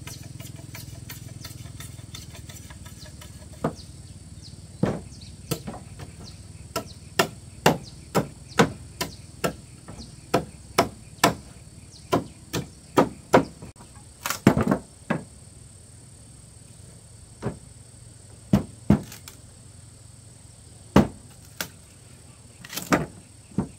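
A hand tool striking wood: an irregular series of sharp knocks, about thirty blows. They come in quick runs through the middle and are more widely spaced near the end.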